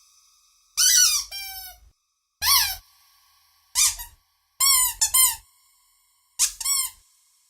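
A series of short, high-pitched squeaks, each rising then falling in pitch, arriving singly or in quick pairs about once a second.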